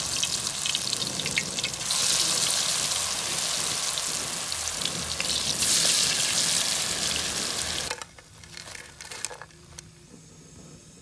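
Palak pakoras (spinach and potato fritters in gram-flour batter) deep-frying in hot oil in a steel pan: a loud, steady sizzle that swells as more batter is dropped in about six seconds in. About eight seconds in the sizzle stops short and a much quieter stretch with a few faint clicks follows.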